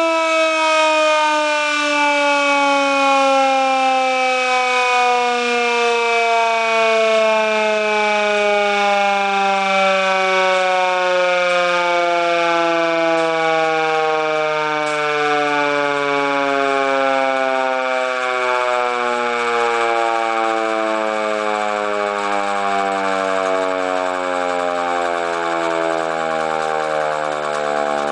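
Federal Signal Model C4 mechanical siren winding down: one long wail whose pitch falls slowly and steadily throughout as the rotor coasts down.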